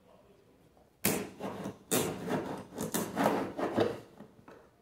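Kitchen knife slitting the packing tape on a cardboard box: a run of scratchy, scraping cuts through tape and cardboard, starting about a second in and lasting about three seconds.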